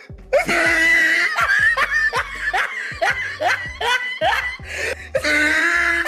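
A person laughing in quick, rapid 'ha-ha' bursts that rise in pitch, with a longer held note near the start and again near the end, over music with a steady low bass.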